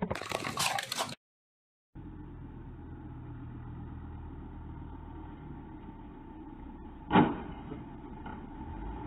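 A steady street hum with an SUV's engine reversing, then, a little over seven seconds in, a single sharp bang as the SUV backs into the front of a parked hatchback. Before that comes a brief burst of noise, then a moment of silence.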